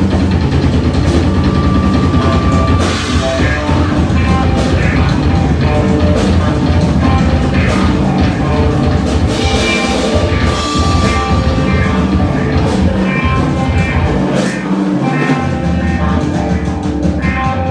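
Loud rock music with a drum kit and guitar, playing without a break.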